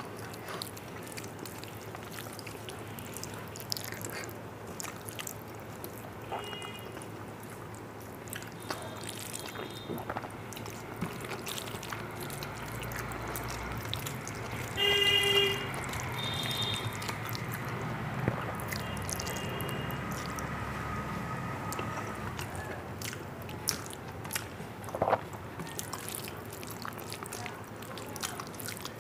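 Fingers mixing rice with dal on a steel plate: wet squelching and small clicks, with chewing and lip-smacking between handfuls. A short, loud horn-like toot sounds about halfway through, with a few fainter toots around it.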